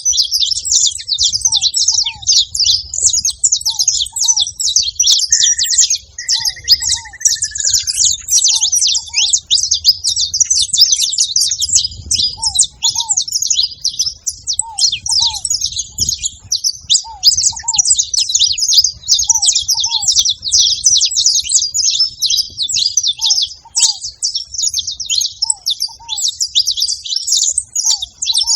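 A flock of saffron finches chirping and chattering continuously. A lower, short two-note call repeats every second or two, and a brief whistled note sounds about five to eight seconds in.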